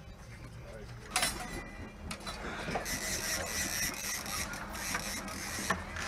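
Fishing reel on a bent trolling rod with a fish on, running with a steady mechanical whir that starts sharply about a second in and holds a fixed high tone.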